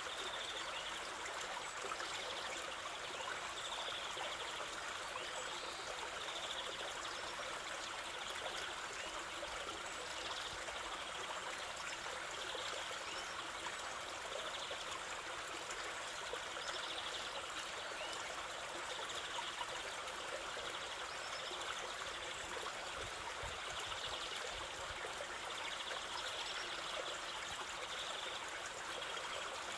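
River water flowing steadily over stones, an even rushing and trickling with no break. Faint, short, high chirps repeat about once a second throughout.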